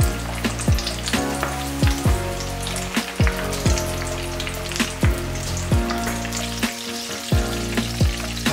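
Coated chicken pieces deep-frying in vegetable oil in a pot: a steady, dense bubbling sizzle full of fine crackles. Background music with a deep, repeating kick drum plays over it.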